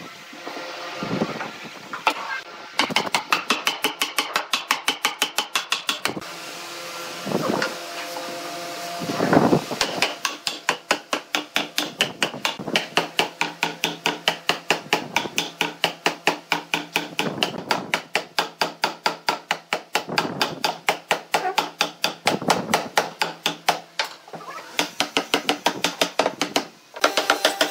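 Rapid, even hammer taps on wooden boards, about four to five a second, in long runs with short pauses between them.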